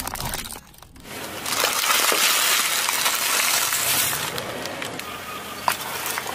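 Car tyre rolling over a plastic bag of popcorn and crushing it, a long loud crackling crunch of plastic and popcorn, easing off near the end with a few sharp snaps.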